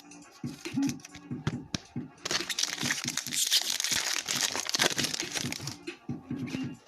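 Plastic foil trading-card pack wrapper being torn open and crinkled: a dense crackle that starts about two seconds in and lasts about three and a half seconds, with scattered small clicks around it.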